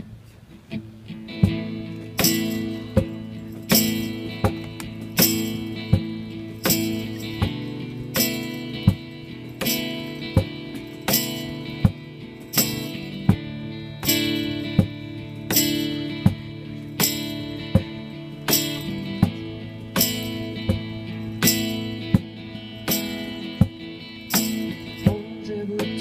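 Live acoustic band playing an instrumental intro: strummed acoustic guitar chords over a steady beat of sharp hits about every three quarters of a second, with cajon. The music starts about a second in.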